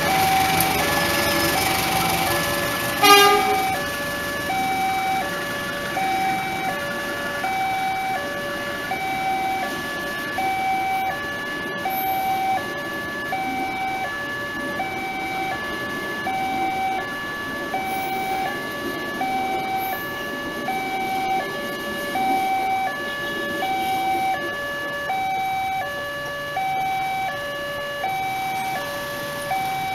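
Railway level-crossing warning alarm sounding a repeating two-tone high-low chime, about one cycle every 1.3 seconds, while a passenger train hauled by a diesel locomotive runs past. There is one short, loud, sharp sound about three seconds in.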